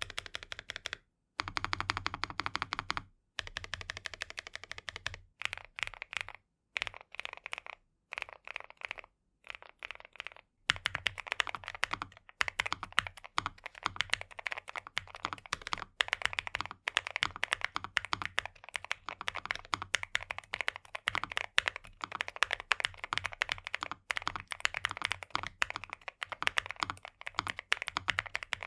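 Typing on a NuPhy Nos75 low-profile mechanical keyboard fitted with factory-lubed Gateron NuPhy N1 Nano switches: a fast stream of keystroke clacks. For about the first ten seconds the typing is broken by short silent gaps; after that it runs continuously and a little louder.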